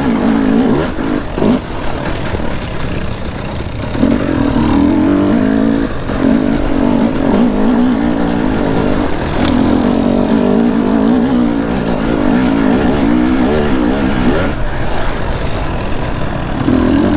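Dirt bike engine running under constantly changing throttle, its pitch wavering up and down. The throttle is eased off for a few seconds starting about half a second in, and again near the end, before the engine picks up.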